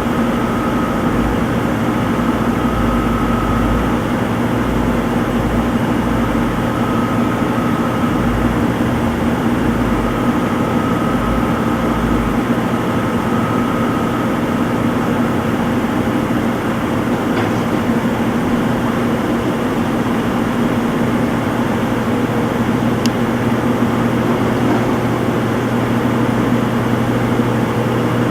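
Front-load washing machine in its spin cycle: a steady motor hum, with a low, uneven pulsing rumble from the spinning drum for about the first twelve seconds, and a faint high whine that comes and goes, before it settles to a steady hum.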